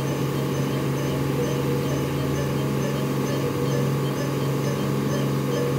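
Steady machine hum from the neonatal ventilator and bedside equipment, with a faint high pattern repeating about twice a second.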